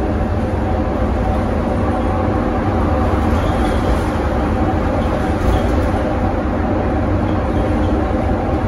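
Scania K230UB city bus driving at a steady pace, heard from inside the cabin near the front door. Its rear-mounted five-cylinder diesel engine drones steadily under heavy road and drivetrain rumble.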